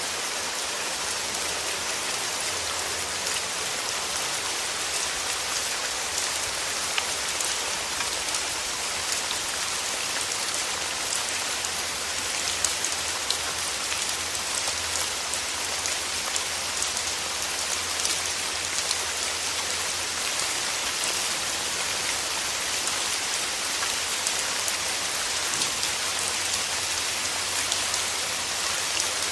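Steady rain falling, a dense even hiss of drops pattering on a surface with many small drop ticks.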